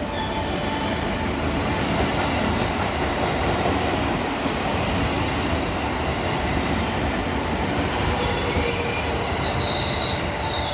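JR West commuter electric train running through the station at speed: a loud, steady rumble of wheels on rails. A high-pitched wheel squeal comes in near the end.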